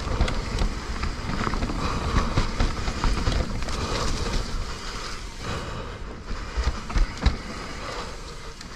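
Mountain bike riding fast down a dirt trail: tyres rolling over the dirt, wind rushing over the camera's microphone and the bike rattling over bumps, with a few sharp knocks in the second half.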